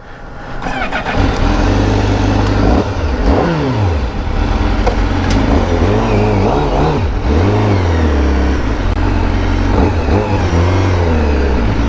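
Honda CBR1000RR-R Fireblade SP's inline-four engine running through an Akrapovic exhaust. The revs rise and fall several times, with one sharp drop about three to four seconds in.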